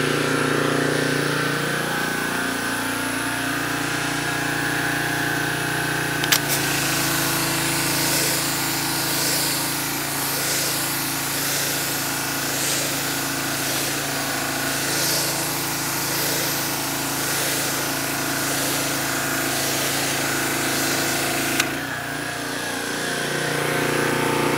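Pressure washer running steadily; about six seconds in the wand's trigger clicks and a water jet hisses against aluminum siding, sweeping back and forth, with the machine's note shifting under load. About 22 seconds in the trigger clicks off, the spray stops and the machine runs on.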